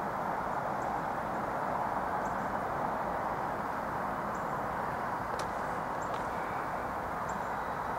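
Distant Norfolk Southern diesel freight train approaching, heard as a steady, even rumbling hiss. A few faint, short high chirps are scattered through it.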